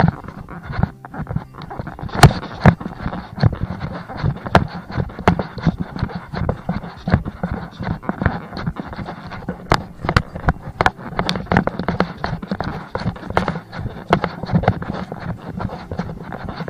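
Footsteps and rustling of a hiker walking a trail, with irregular knocks and scrapes close to the microphone.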